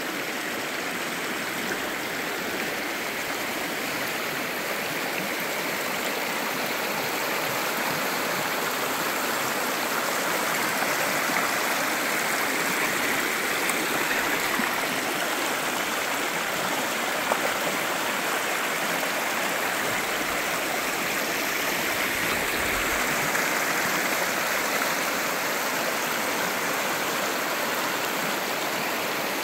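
Shallow rocky stream rushing and splashing over stones, a steady water sound that grows a little louder through the middle stretch.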